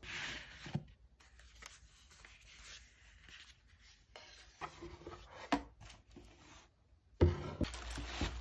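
Satin ribbon rubbing and sliding as it is untied from a cardboard gift box, with small taps and rustles of handling. A sharp knock about seven seconds in, then fabric and tissue paper rustling.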